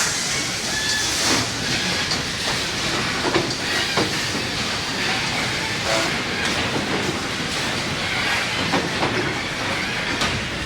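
Factory assembly-line noise: a steady mechanical hiss and rumble with irregular knocks and clicks.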